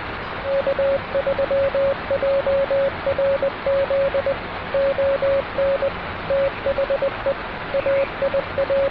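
Morse code sent as a steady mid-pitched tone in short and long pulses, keyed over continuous radio static hiss.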